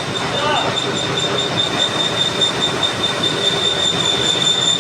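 Metal lathe cutting a flange, with a steady high-pitched squeal from the cutting tool over the running machine's noise.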